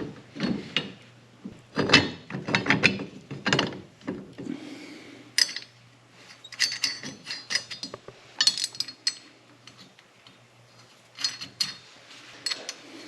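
Hand socket ratchet clicking in repeated short bursts as bolts are run in and tightened.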